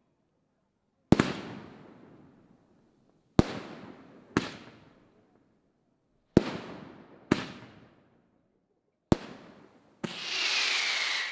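Aerial fireworks shells bursting overhead: seven sharp bangs at uneven intervals, each trailing off in a rolling echo. About ten seconds in comes a loud hiss with a whistle falling in pitch, lasting about a second and a half.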